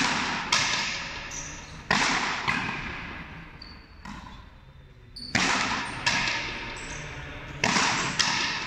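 A frontenis rally: the hard rubber ball is struck by racquets and smacks off the front wall. It makes about eight sharp hits, mostly in pairs about half a second apart, each ringing out in a long hall echo.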